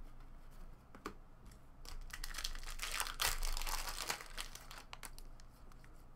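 Foil wrapper of an Upper Deck hockey card pack being torn open and crinkled by hand, the crackling loudest through the middle. A short sharp click comes about a second in.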